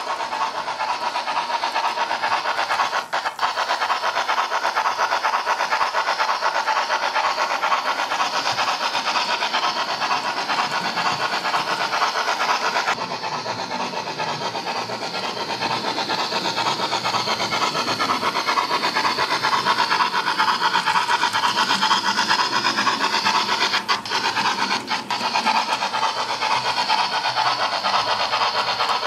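Digital-controlled model railway locomotives running steadily around the layout: a continuous motor hum with wheel noise on the track.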